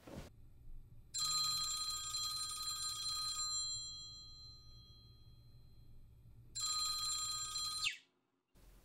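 iPhone ringtone for an incoming call, ringing twice: the first ring starts about a second in and fades away after a few seconds, the second starts near the end and cuts off abruptly as the call is answered.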